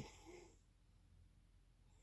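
The end of a snore fading out in the first half second, then the quiet pause between snores over a faint steady low hum.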